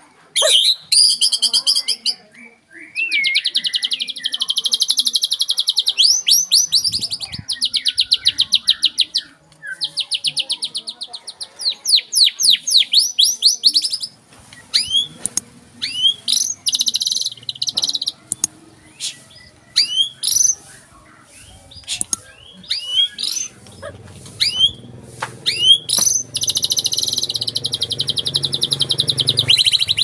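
White-rumped shama (murai batu) singing in bursts of fast rattling trills of rapidly repeated high notes, sharp sweeping whistles and chattering phrases, with short pauses between bursts. A low steady hum sits underneath in the last several seconds.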